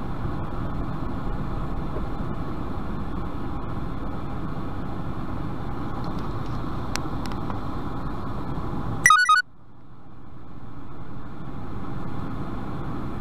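Steady running noise of a semi-truck heard from inside its cab, an even engine and road rumble. About nine seconds in, a short loud burst of rapid high beeps, after which the cab noise drops out and swells back up over a few seconds.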